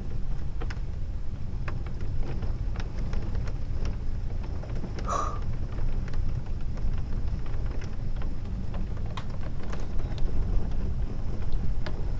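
Heavy thunderstorm rain, with scattered drops ticking close by over a steady low rumble. A brief high chirp comes about five seconds in.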